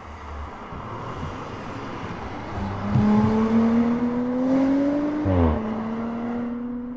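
2018 Audi RS 4 Avant's 2.9-litre twin-turbo V6 accelerating past under load. Its note climbs steadily, drops suddenly about five seconds in as it shifts up, then carries on lower and fades as the car pulls away.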